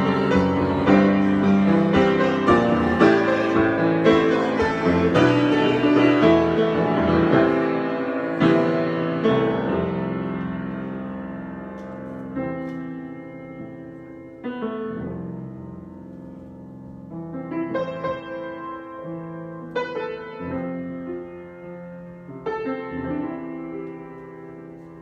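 Solo piano improvisation: dense, full chords and runs for the first ten seconds or so, then the playing grows softer and sparser, with single chords and notes struck a second or two apart and left to ring.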